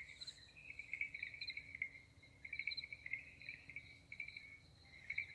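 Field crickets chirping at night: faint, high-pitched pulsed trills repeating in short bursts.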